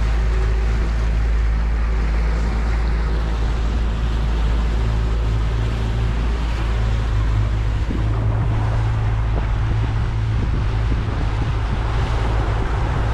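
Boat motor running steadily under way, with a low even drone, under strong wind noise on the microphone and the rush of water.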